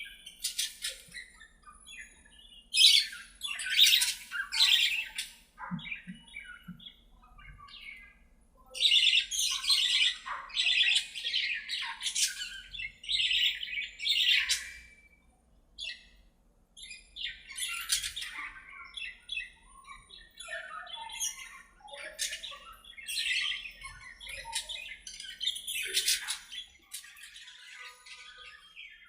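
Budgerigars chattering and squawking: several loud stretches of harsh, rapid calls, with quieter chirps between them.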